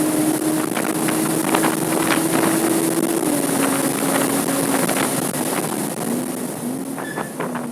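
Porsche 987.2 Cayman S's 3.4-litre flat-six engine running hard at high, steady revs, its note dropping a step about three seconds in and again about six seconds in, with wind rushing past and scattered light taps.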